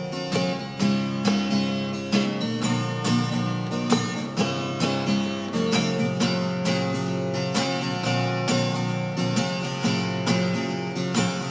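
Acoustic guitar strummed in a steady rhythm, playing an instrumental passage between sung lines.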